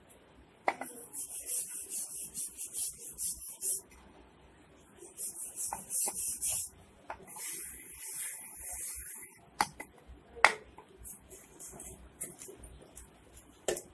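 Hands rubbing and brushing dry flour across a wooden chapati board on newspaper, in three spells of scratchy rubbing. After that come a few sharp knocks, the loudest about ten seconds in.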